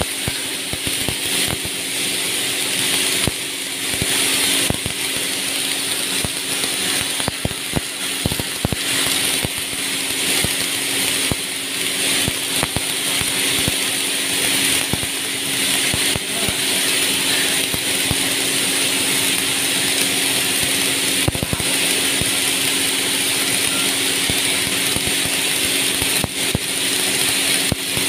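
Steady electrical hum and hiss from a submerged-arc welding tractor and its welding setup, with frequent small irregular clicks and crackles.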